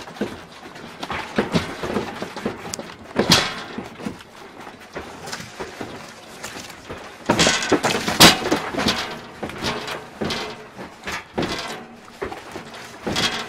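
A room's contents rattling, knocking and clattering as a building sways in a strong earthquake. There are louder crashes about three seconds in and again around seven to eight seconds in as objects fall.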